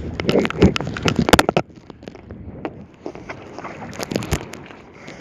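Wind buffeting the microphone over choppy sea, with water splashing against a kayak. A quick run of sharp knocks and splashes fills the first second and a half, then it goes quieter with scattered clicks.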